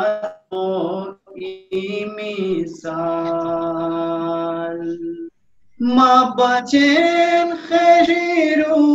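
A solo voice singing a naat, a devotional poem, in melodic phrases. It holds one long steady note for about two seconds, pauses briefly past the middle, then goes on singing.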